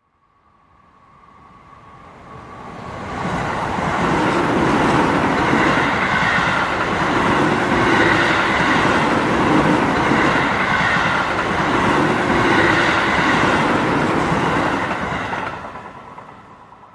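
Diesel locomotive sound effect: a train engine running and moving on the rails. It fades in over the first few seconds, holds with swells about every two seconds, and fades away near the end.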